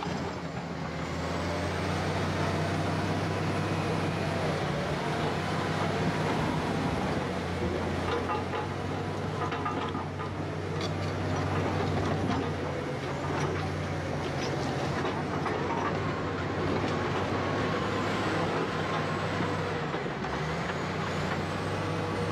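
Crawler bulldozer's diesel engine running steadily under load as the machine pushes earth and rock with its blade. The engine note shifts near the end.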